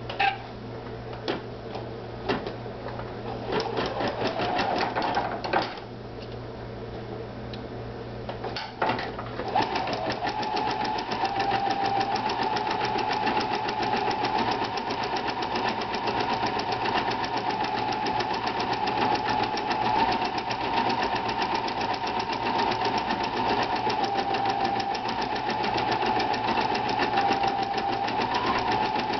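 Pfaff 2170 sewing and embroidery machine stitching out an embroidery design. A few clicks and short starts come first, then from about ten seconds in it runs steadily at a rapid, even stitch rate.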